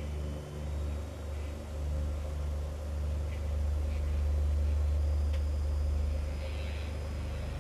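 Low, rumbling drone of dark ambient background music that slowly swells and fades, with a few faint small ticks over it.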